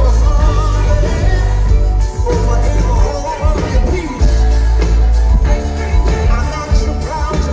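Live soul-rock band playing loudly, with a sung vocal line over heavy bass.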